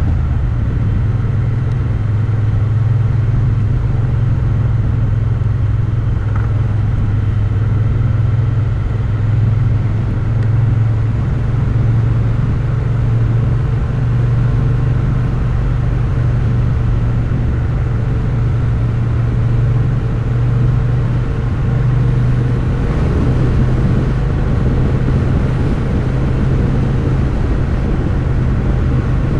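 Motorcycle engine running at a steady cruising speed: an even, low drone whose pitch barely changes.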